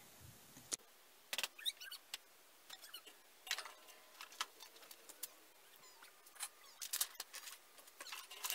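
Objects being picked up, moved and set down on a wooden workbench, with paper handled: scattered light knocks, clicks and rustles, faint and irregular.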